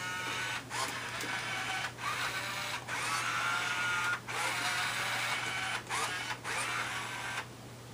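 Robosapien V2 toy robot's gear motors whirring as it moves its arms and body. The whirring runs in stretches a second or two long with brief pauses between them, and stops near the end.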